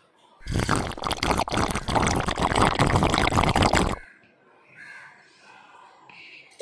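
A sound effect of water pouring and gulping, laid over someone drinking a glass of water. It starts suddenly about half a second in and cuts off sharply at about four seconds.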